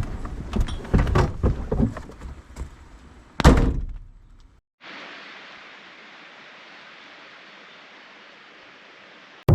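A few light knocks and rattles, then a car door shut with one loud thunk about three and a half seconds in. After a brief gap, a steady, even hiss.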